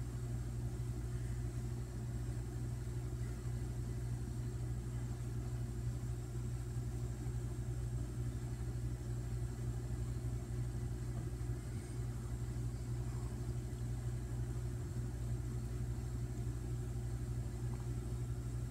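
Steady low hum with a faint hiss from a television playing a silent stretch of VHS tape.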